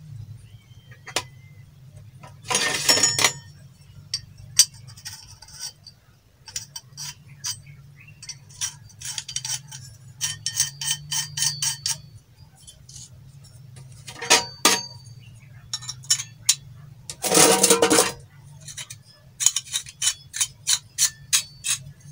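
Galvanized steel pipe fittings clinking and clicking against each other and a tin can as they are handled and screwed together, with runs of quick, even clicks and two short rattling bursts of parts being rummaged in the can, about three seconds in and again about seventeen seconds in. A steady low hum runs underneath.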